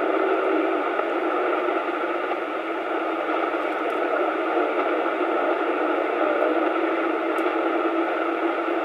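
CB radio receiver hissing with static between transmissions, a steady, muffled rush of noise with the squelch open and no signal.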